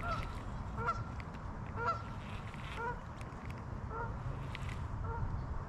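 A goose honking over and over, short calls about once a second.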